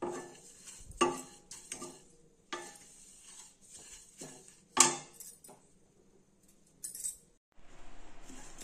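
Wooden spatula scraping and turning dry rolled oats in a nonstick pan, in strokes about once a second, the loudest about five seconds in. The oats are being dry-roasted until crisp.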